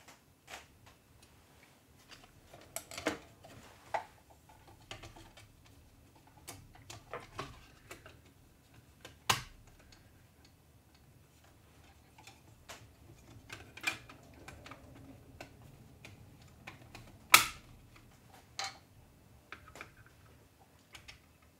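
Irregular plastic clicks and knocks from the covers of a 3D printer's print head being screwed on and fitted into place by hand. One knock about 17 seconds in is much louder than the rest.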